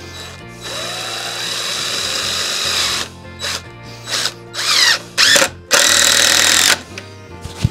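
Cordless drill driving a screw into a wooden cabinet frame: one steady run of a couple of seconds, then a series of short trigger bursts, each spinning up in pitch, as the screw is drawn in and seated.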